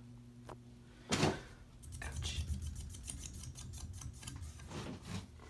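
Canarm Twister ceiling fan's motor humming steadily on low speed. About a second in comes a loud knock, then several seconds of rapid clicking and rattling before the hum is left alone again.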